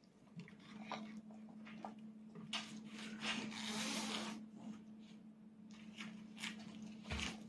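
Quiet eating sounds: light clicks and scrapes of a small fork in a bowl of rice, with a soft rustle about three seconds in, over a steady low hum.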